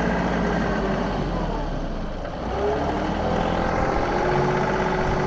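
John Deere 2038R compact tractor's three-cylinder diesel engine running steadily as it pulls a chain harrow across tilled soil, easing off briefly about two seconds in before coming back up.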